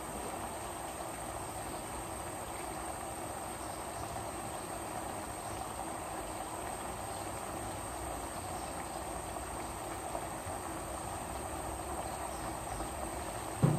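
A covered pot of chicken asado simmering on the stove: a steady hiss with a thin, high, steady whine over it. A single dull thump near the end.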